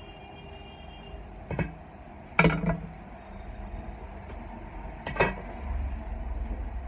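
Steady pedestal fan noise, broken by three short, sharp sounds, the loudest about two and a half seconds in.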